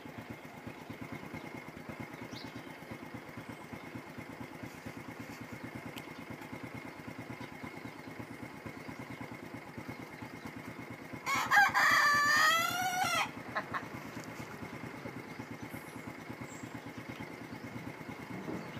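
A rooster crows once, a single drawn-out call of about two seconds a little past the middle. Underneath, an engine idles steadily with a low, fast chugging.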